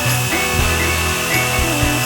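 Background music: an instrumental stretch of a song, with changing bass notes.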